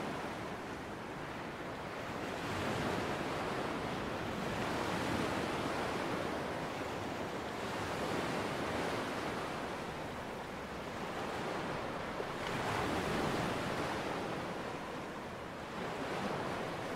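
Small waves washing onto a sandy beach, a steady rush that swells and fades every few seconds.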